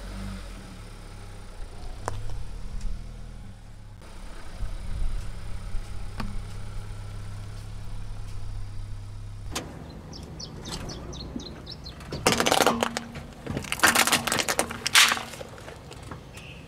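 A car's engine running low, with a light click now and then. About ten seconds in comes a string of short high squeaks, then two loud crunching bursts, as a toy is squashed under the tyre.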